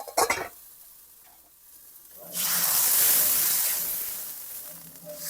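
Chicken stock poured into a hot wok with garlic and ginger, hitting the hot metal with a sudden loud hiss and sizzle about two seconds in that slowly dies down. A few short knocks at the start.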